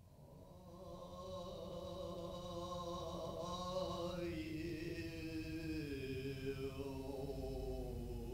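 Slow, chant-like droning music fading in: sustained, layered tones, with a high tone that glides upward about halfway through and a lower line that slides down later.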